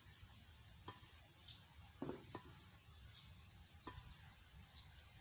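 Near silence, with a few faint clicks; the most noticeable comes about two seconds in.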